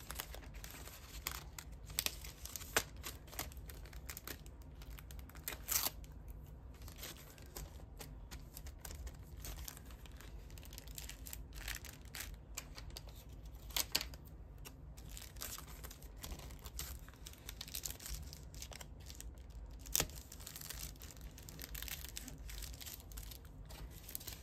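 Clear plastic sleeve and paper cards rustling and crinkling as they are handled, slid into the sleeve and pressed flat, in irregular crackles with a few sharper ones.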